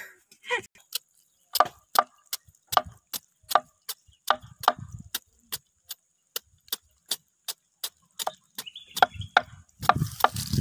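Machete blade chopping the rind off a green jackfruit on a wooden board: short, sharp strokes at an even pace, about three a second.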